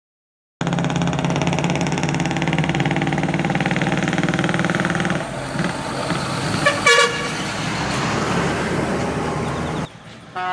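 Decorated art truck's diesel engine running as the truck pulls past, with a short horn toot about seven seconds in. The sound starts and cuts off suddenly.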